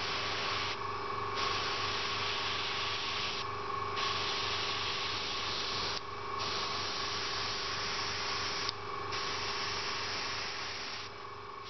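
Airbrush hissing as short sprays of compressed air and paint lay down dots, the hiss breaking off briefly about every two and a half seconds between dots. A small airbrush compressor, set to about 1 bar (15 psi), hums steadily underneath.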